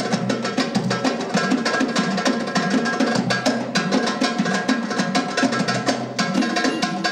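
Live Arabic belly-dance band music: darbuka and frame drum playing a fast rhythm of sharp strokes, with sustained keyboard and violin melody over it.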